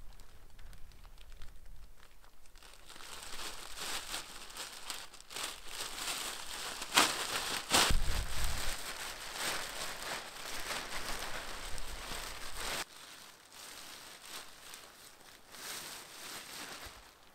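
Plastic trash bags crinkling and rustling as they are handled, with a sharp knock about seven seconds in and a heavier thump just under a second later. The rustling drops off abruptly about thirteen seconds in.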